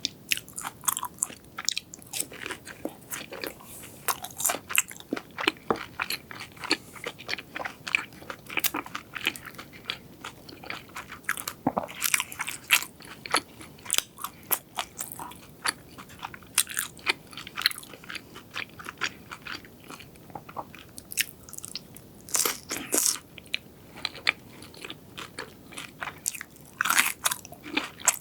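Close-miked eating of crisp fried food: repeated crunchy bites and chewing, many sharp crackles throughout with a few louder crunches.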